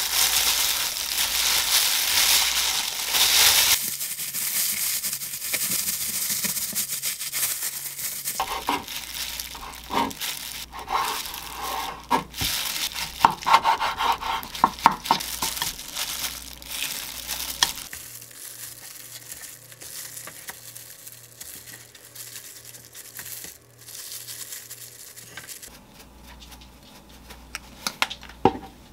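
Disposable plastic gloves crinkle as a kimbap roll is pressed and rolled on a bamboo mat. After that, a knife cuts through the seaweed-wrapped roll in a series of sharp cuts, each ending with a knock on the wooden cutting board.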